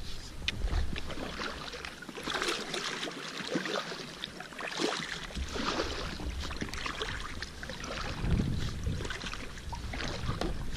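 A double-bladed paddle dipping and pulling through the water beside an inflatable packraft, with irregular splashes and drips from the blades.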